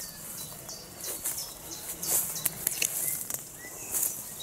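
Footsteps through woodland undergrowth, with leaves and twigs rustling as branches brush past, and several sharp twig clicks. A few faint bird chirps sound in the background.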